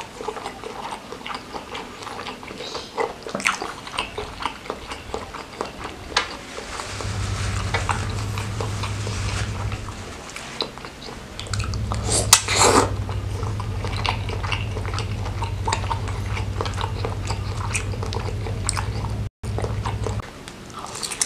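Close-up chewing and mouth sounds of a man eating a chewy beef-tendon meatball, with many small wet clicks, mostly in the first seven seconds. A low steady hum comes in about seven seconds in and runs through most of the rest, and a short loud breathy noise comes a little after twelve seconds while a tissue is held to his face.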